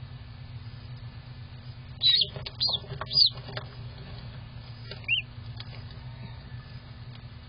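A newly hatched duckling peeping: four short, high peeps, three close together about two seconds in and one more about five seconds in. A steady low hum runs underneath.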